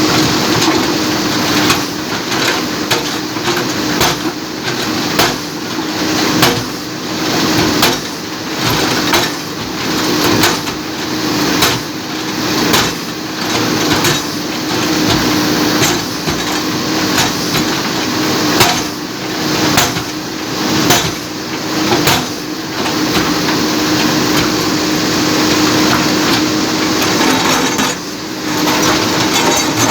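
JCB backhoe loader's diesel engine running steadily under repeated sharp, irregular knocks and cracks as the bucket strikes and breaks up the old bridge's concrete.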